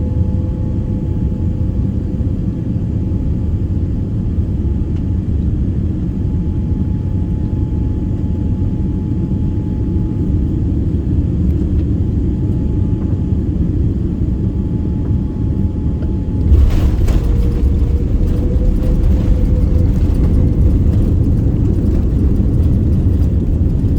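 Passenger jet cabin noise during landing: a steady low rumble that turns suddenly louder, with a few knocks, about two-thirds of the way through.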